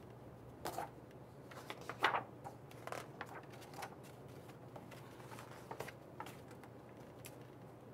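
Pages of a hardcover picture book being turned: a string of short paper rustles and flips, the sharpest about two seconds in.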